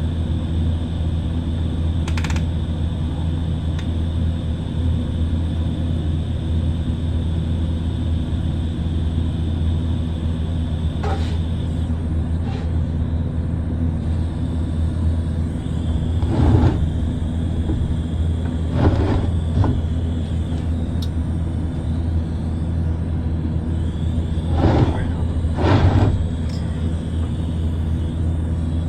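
Steady electrical hum of a welding setup, broken by several short bursts of arc welding lasting about a second each. The loudest come about midway through and twice near the end. Steel is being tack-welded inside a worn exhaust valve seat to give a ledge for driving the seat out.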